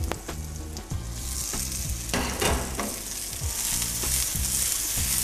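Diced zucchini and cherry tomatoes sizzling in hot olive oil in a frying pan. The sizzle gets louder and hissier about a second in as the tomatoes go into the oil, with a few knocks from the pan being shaken.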